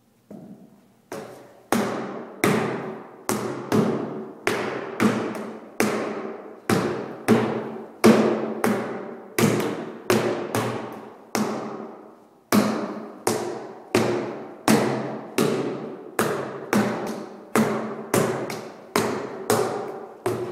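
A blackthorn cane striking a stack of rubber tires again and again: sharp whacks, about one to two a second and irregularly spaced, each ringing on in an echoing room. The strikes pause briefly about midway.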